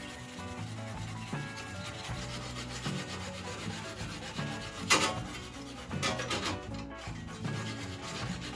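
Abrasive rubbing and scraping under background music with held notes. One louder, sharp scrape comes about five seconds in.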